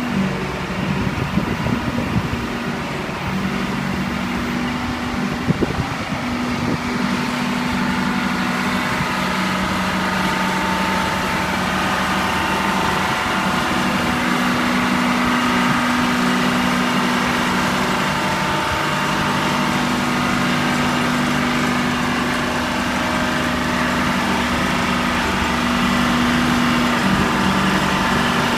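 Badger Hydro-Scopic 460 excavator's engine running steadily at a constant speed, with a few knocks in the first six seconds.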